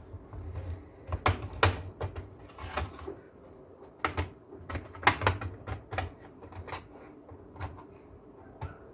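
Plastic clips of a Lenovo IdeaPad 3 laptop's bottom cover snapping loose as the cover is pried off with a plastic spudger: a dozen or so sharp, irregular clicks over low handling rumble.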